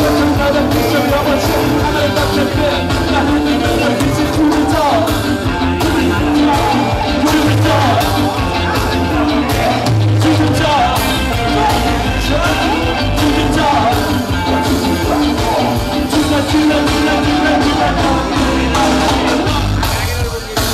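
Ska band playing live with drums, bass, guitar and keyboards and a sung lead vocal over a steady beat, recorded from among the crowd.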